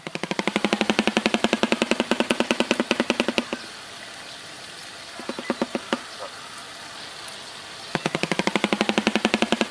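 Shoebill clattering its bill: a rapid, machine-gun-like rattle of clacks. One bout breaks off after about three and a half seconds, a few single clacks follow, and a second bout starts near the end.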